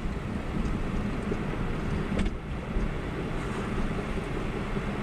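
Geo Metro driving on the road, heard from inside the cabin: steady road and running noise, with one faint knock about two seconds in. The car has a knock that varies with wheel speed, which the owner suspects comes from the axles or brakes.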